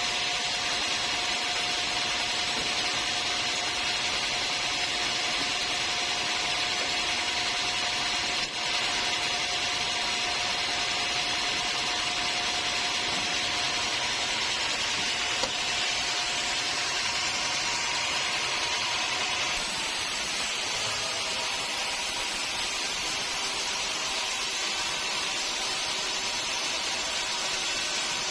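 Sawmill machinery sawing timber, a steady running noise with a held tone that ends about two-thirds of the way through, where the sound shifts.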